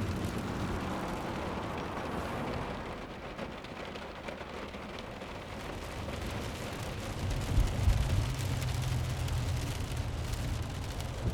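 Car-interior rain ambience from Krotos Studio's Genesis 'wet driving' preset: steady rain on the roof and windscreen heard from inside the car. A deeper low rumble swells in about seven seconds in, with a few thumps.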